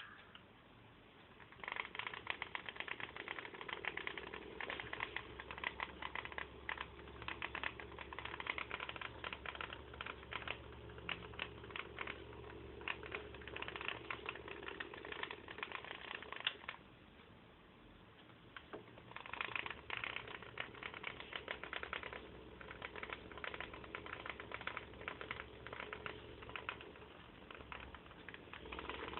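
Homemade electric fan running with a fast, typewriter-like clattering rattle over a low motor hum. It starts about two seconds in, stops for a couple of seconds past the middle, then runs again.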